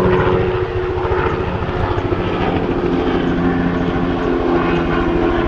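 Helicopter flying past: rapid rotor chop under a steady engine drone, its pitch dropping a little after the midpoint as it passes.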